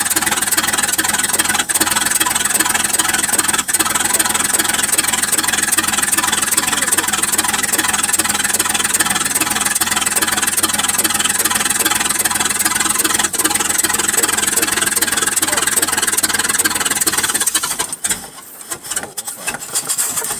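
1975 Rolls-Royce 6.75-litre V8 running steadily at idle, then cutting out about eighteen seconds in.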